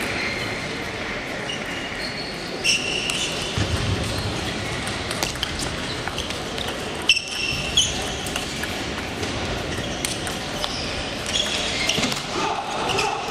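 Table tennis ball hits: the ball clicking sharply off paddles and the table many times at irregular intervals, mixed with hits from neighbouring tables. A murmur of voices carries through a large hall.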